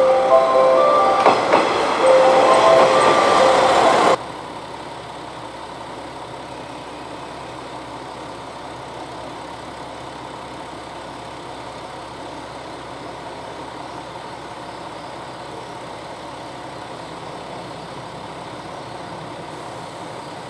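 A station chime melody plays over the loud rumble of a diesel railcar moving along the platform. About four seconds in the sound drops abruptly to the steady, quieter hum of a KiHa 47 diesel railcar idling at the platform.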